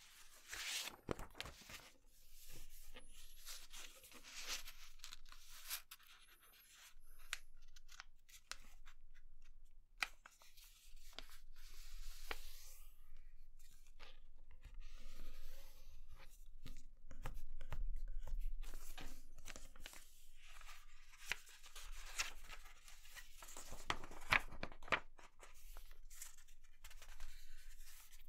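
A sheet of paper being folded by hand: irregular rustling and sliding of the paper, with crisp creasing strokes and small clicks as the folds are pressed flat.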